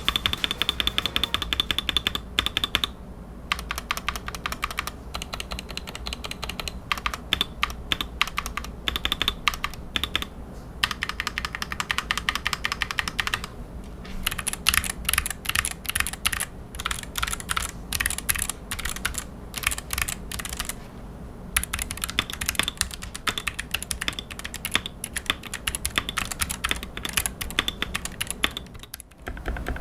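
Typing on a Gamakay MK68 keyboard with Gateron Yellow optical switches: fast runs of keystrokes with a few short pauses.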